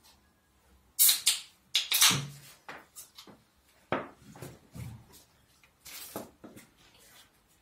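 A series of sudden knocks, scrapes and rustles as things are handled on a table around a plastic bowl, in several short clusters, the loudest in the first two seconds or so.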